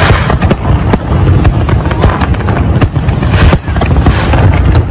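Fireworks display going off in quick, irregular succession: aerial shells and rising comets give many sharp bangs and crackles, several a second, over a continuous low rumble.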